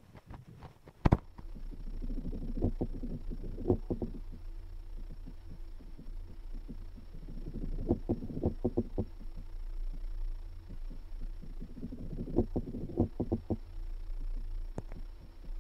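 Substrate-borne courtship vibrations of a male peacock spider (Maratus volans), picked up by a laser vibrometer and played as sound. Bursts of rapid low thumping and buzzing come in groups about every four to five seconds over a steady low hum. A single sharp click about a second in is the loudest sound.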